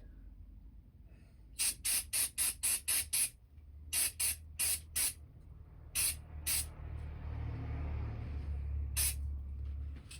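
Aerosol carburettor cleaner sprayed in short bursts onto chainsaw carburettor parts: a quick run of about seven sharp hisses, then a few more in small groups and one last one near the end.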